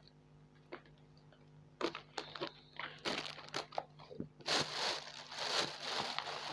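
Plastic grocery packaging being handled: a few taps and knocks, then dense crinkling and rustling from about four and a half seconds in.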